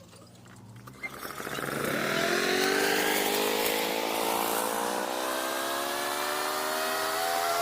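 Lawn mower's Briggs & Stratton 140cc single-cylinder four-stroke engine starting about a second in, its pitch rising quickly and then creeping up steadily as it comes up to speed.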